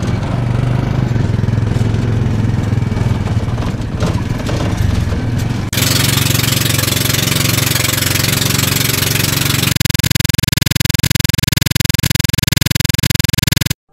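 Motorcycle tricycle engine running during the ride. About six seconds in it cuts to an outrigger motorboat's engine running, which turns into a fast, even pulsing for the last few seconds.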